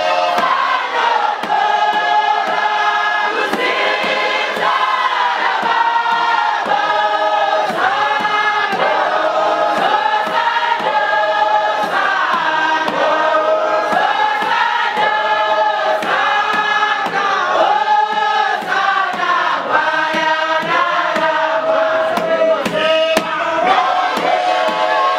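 A large congregation of men and women singing a Shona church chorus together in full voice.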